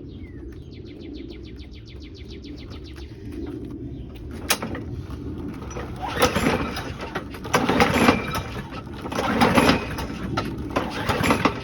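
A Briggs & Stratton 6.5 hp push-mower engine is pull-started several times with its recoil starter. Each pull whirs the engine over, but it never fires, so it won't start. Before the pulls there are about two seconds of rapid light ticking.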